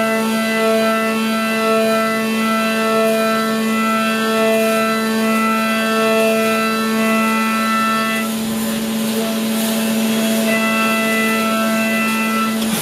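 Brother Speedio S700X1 CNC mill cutting with flood coolant: a steady pitched whine from the spindle and cutter over the hiss of coolant spray. The upper overtones of the whine drop out for about two seconds some eight seconds in.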